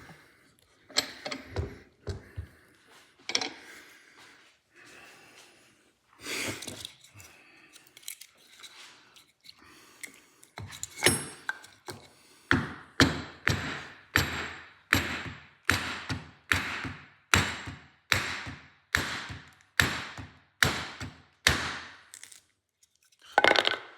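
Hammer blows on a wooden block, driving a slotted ABS reluctor ring onto a drive axle: a few scattered knocks, then a steady run of strikes about two a second through the second half, and one more blow near the end.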